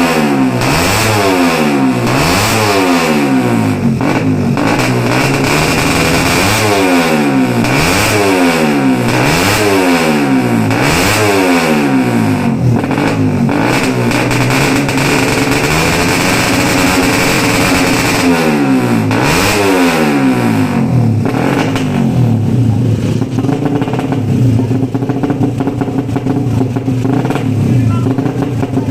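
Ported Suzuki Satria FU single-cylinder four-stroke engine being free-revved in quick throttle blips, its pitch rising and falling about once a second, then settling into steadier running for the last several seconds. The revving tests the carburettor setting after a jet-needle change.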